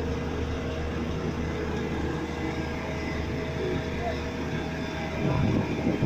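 Heavy diesel engines of a tipper lorry and an asphalt paver running steadily, with a voice near the end.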